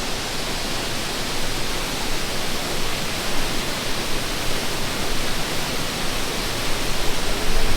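Dudhsagar Waterfall's water falling, a steady rushing noise without a break.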